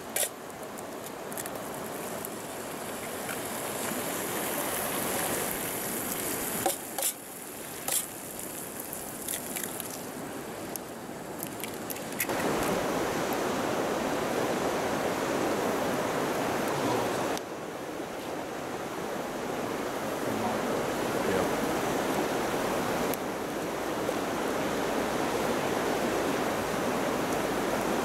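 Rushing river water, a steady hiss, stepping abruptly louder or quieter a few times.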